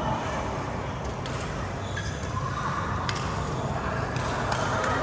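Badminton rally: several sharp racket hits on the shuttlecock over steady hall noise.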